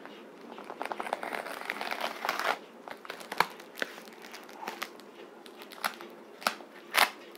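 Plastic parcel wrapping crinkling as it is handled and picked open by hand: a stretch of crinkling in the first couple of seconds, then a few separate sharp crackles.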